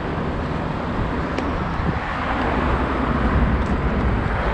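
Road traffic passing on a busy street, with wind rumbling on the microphone. The noise slowly grows louder.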